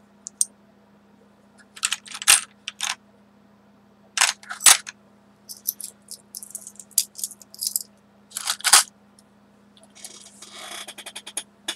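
Small metal charms and embellishments clinking against one another as a hand sorts through them in a bin: irregular groups of sharp clinks, with a softer rustle near the end.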